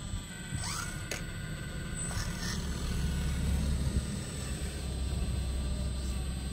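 Radio-controlled scale excavator working, its motors whining as the arm swings, with a short rising whine and a click about a second in. A low rumble swells through the middle.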